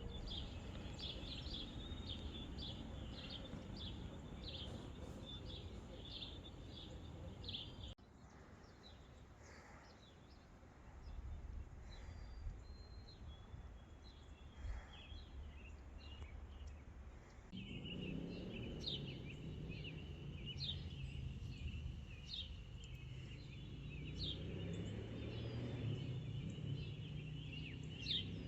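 Small birds chirping and twittering repeatedly over a faint low outdoor rumble. The birdsong thins out about 8 seconds in and returns strongly about 18 seconds in.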